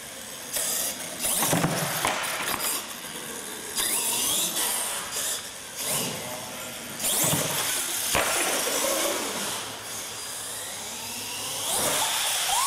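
Radio-controlled monster truck's motor revving in short bursts as it is throttled around a concrete floor, the whine rising in pitch on several of the bursts.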